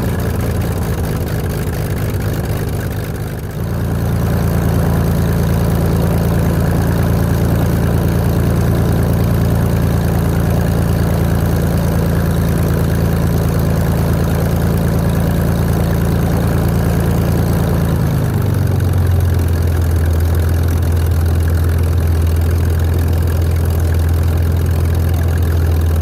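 Corvair air-cooled flat-six aircraft engine running on its first start, turning the propeller. About three and a half seconds in, the engine speed steps up and it runs louder. A little after eighteen seconds it throttles back to a lower, deeper note and runs steadily.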